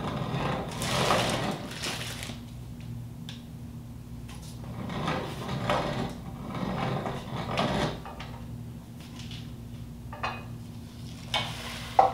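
Hand-cranked grain mill grinding corn kernels into meal, rasping in stretches with strokes about two a second. A sharp knock near the end.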